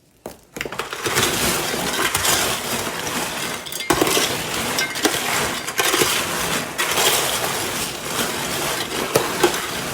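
Warm caramel-coated popcorn being stirred and turned over, a dense crackling, crunching rustle of kernels with small sharp clicks. It starts about half a second in; the caramel is still setting, so the crunch is only partly crisp.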